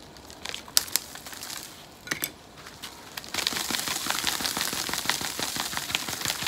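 Old sandy potting soil crumbling and pattering off a camellia's root ball as the plant is shaken and rubbed with a rubber-gloved hand, to clear the old soil before repotting. A few scattered ticks at first, then a dense crackling rustle from a little past three seconds in.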